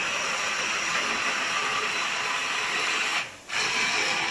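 A 300-watt hand blender's motor running steadily as it purees cooked tomatoes and carrot. It drops out briefly about three seconds in, then runs again.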